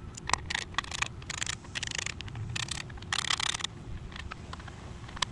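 Socket ratchet clicking in short runs, with single sharp clicks between, as the bolts holding the generator's plastic air box cover are loosened.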